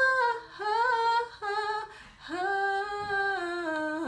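A woman singing a vocal riff unaccompanied on open vowels, as a slow demonstration: four short notes in quick succession, then a longer held note that steps down in pitch near the end.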